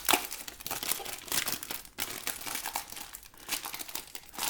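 Crinkly packaging rustling and crackling in quick, irregular bursts as a new foldable Bluetooth keyboard is unwrapped, with a short pause about two seconds in.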